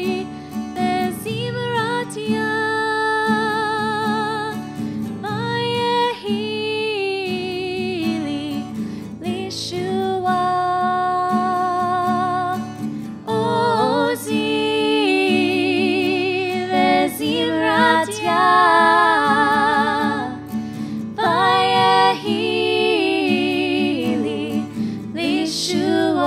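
A female cantor singing a Hebrew prayer song with vibrato, accompanied by acoustic guitar.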